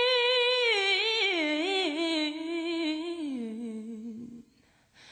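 A woman's voice singing a wordless, unaccompanied line from a song: a long held note that breaks into wavering, ornamented turns and steps down to a lower held note, fading out about four and a half seconds in.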